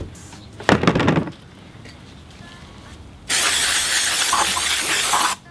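Aerosol spray can blasting cleaner onto a flywheel, a steady hiss of about two seconds that cuts off sharply, after a brief clatter about a second in.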